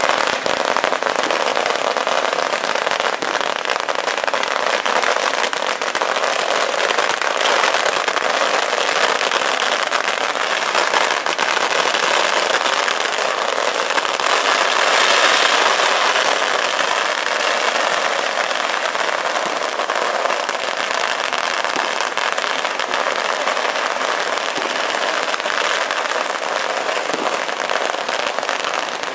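Long strings of firecrackers going off in a continuous, rapid crackle of pops, loud throughout and swelling a little about halfway through.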